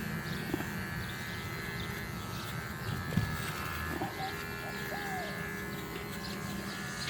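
Electric hair clippers buzzing steadily as they shave a dog's thick coat.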